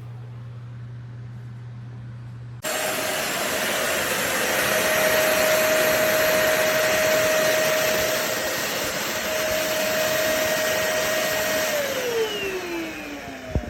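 Corded stick vacuum cleaner with a 400 W motor switched on about two and a half seconds in, running with a loud airy rush and a steady whine. Near the end it is switched off and the motor's whine falls in pitch as it spins down, with a click just before it stops. A low hum is heard before it starts.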